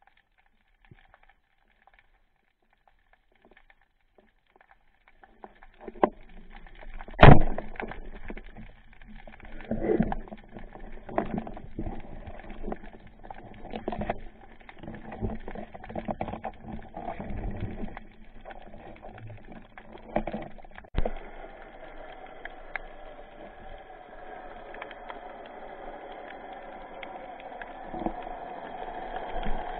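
Underwater, muffled speargun shot: after a few seconds of near silence, one loud sharp crack about seven seconds in, followed by scattered knocks and clicks of the spear shaft and line as the speared mullet is handled, with a steady water rush growing toward the end.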